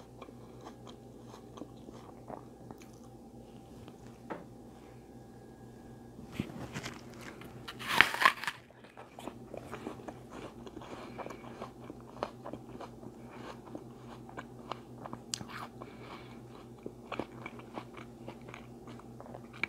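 A person chewing and biting food close to the microphone: soft, irregular crunches and wet mouth clicks, with one louder half-second noise about eight seconds in.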